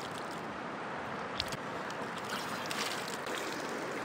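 Shallow mountain river rushing steadily over stones, with a few small splashes as water is scooped up in cupped hands and splashed onto a face.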